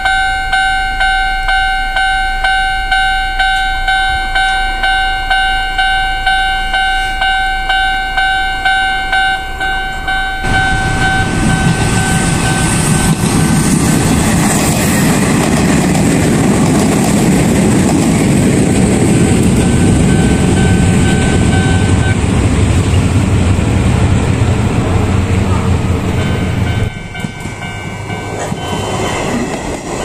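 Japanese level-crossing warning bell ringing steadily at about two strokes a second. About ten seconds in, an Izuhakone Railway train runs loudly over the crossing, covering the bell. The train noise drops briefly near the end, then picks up again.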